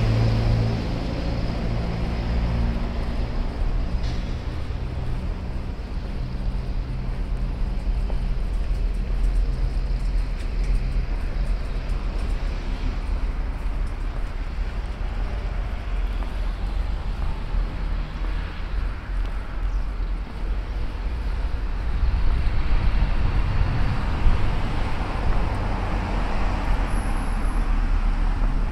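Road traffic: a steady low rumble of passing vehicles, with an engine hum at the very start that soon fades. The traffic grows louder about 22 seconds in.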